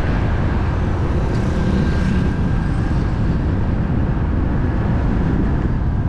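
Motorbike riding along a paved road, heard from a camera mounted on the bike: a loud, steady rumble of engine, tyres and wind, with a faint steady whine above it.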